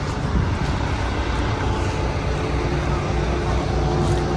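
Combine harvester's diesel engine running steadily close by: a low drone with a steady hum on top, growing a little louder toward the end.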